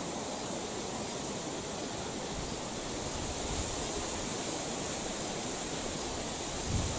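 Steady rushing noise of wind in the forest canopy, with low rumbles of wind on the microphone a few seconds in and again near the end.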